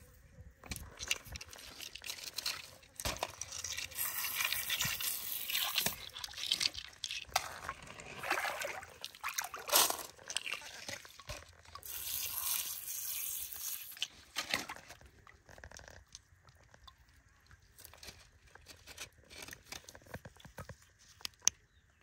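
A thin jet of water spraying over wet gravel in a perforated metal sieve, with pebbles clicking and scraping as a gloved hand moves them. The spray stops about two-thirds of the way through, leaving only scattered clicks of stones.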